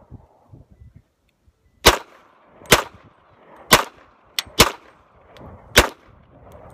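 Glock 20 pistol fitted with a Stormlake .40 cal conversion barrel firing a string of shots, roughly one a second with two in quick succession about halfway through. The pistol cycles each round without feeding problems.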